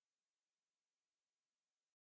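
Near silence: a faint, even hiss that cuts off to dead silence just before the end.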